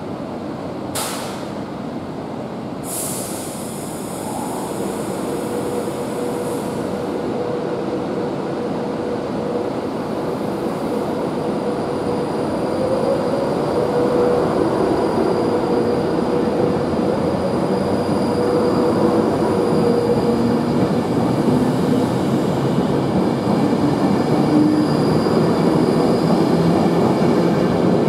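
Class 390 Pendolino electric train pulling away from a platform: a whine from its electric traction motors climbs in pitch as it gathers speed, and wheel and rail noise grows steadily louder. Two brief sharp sounds come in the first few seconds.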